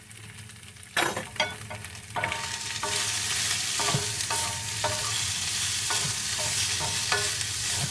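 Carrots and radishes frying in a pan. A few sharp knocks and clatters of a utensil come about a second in, then a steady sizzle swells about three seconds in. Scattered taps of stirring run through the sizzle.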